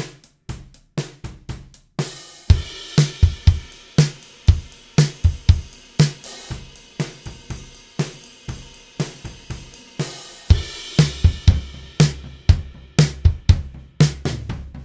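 Drum kit played in a steady groove, heard through a pair of overhead microphones only. A light pattern opens it; about two seconds in a cymbal crash starts a full beat of kick, snare and ringing cymbals, with another crash about ten seconds in.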